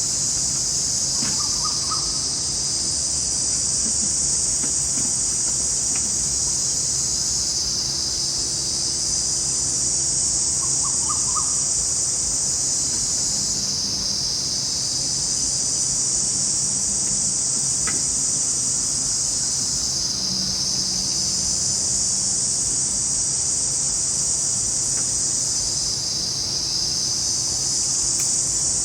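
Forest insect chorus: a loud, steady, high-pitched drone that swells and dips every few seconds. A bird gives a short burst of quick notes twice, about a second in and about eleven seconds in.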